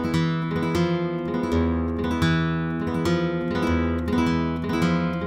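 A 1983 Conde Hermanos flamenca blanca, a cypress-bodied flamenco guitar, played solo: a series of chords and notes in quick succession, each ringing on and fading under the next.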